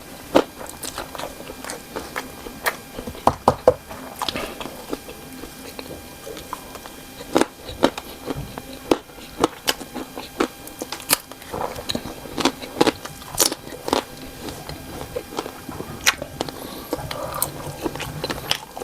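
Close-up eating sounds: a person biting and chewing cocktail sausages in green chili sauce, with irregular sharp, wet mouth clicks.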